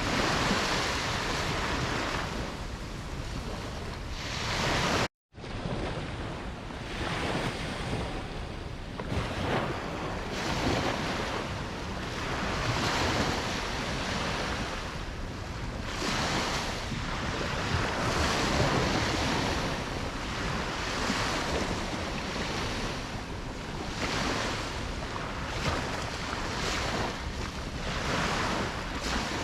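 Ocean surf: waves breaking and washing in a steady hiss that swells and eases every few seconds. About five seconds in, the sound cuts out completely for a split second.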